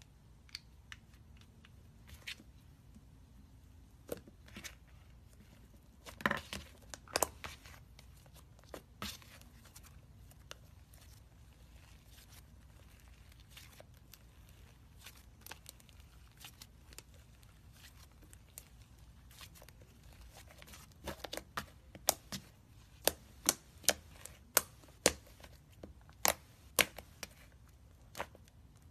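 Thick fluffy slime being kneaded and poked by hand, popping and crackling as trapped air bursts out. The pops are sparse at first, with a quick cluster a few seconds in, then come loud and regular, about two a second, in the last third.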